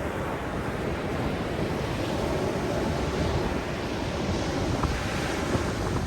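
Ocean surf washing steadily, a dense rushing with a heavy low rumble, mixed with wind buffeting the microphone.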